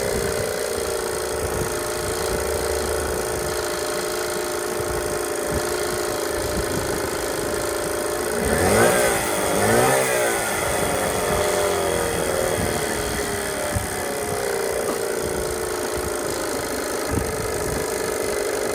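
Yamaha 6 hp outboard motor running at a steady idle, revved up and back down twice about nine and ten seconds in.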